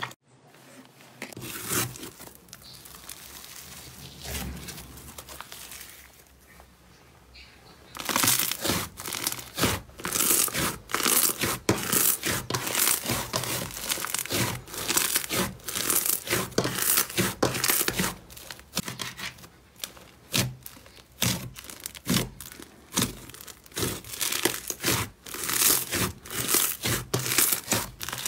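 Hands squeezing, folding and pressing a fluffy white, snow-textured slime, which gives off dense crackling and crinkling, many small pops a second. The first several seconds are softer and quieter before the crackling sets in.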